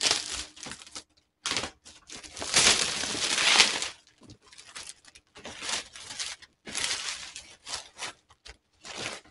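Clear plastic shrink wrap being slit with a box cutter and torn off a cardboard box, crinkling and tearing in uneven bursts. The longest and loudest tear comes from about two and a half to four seconds in, followed by shorter crinkles.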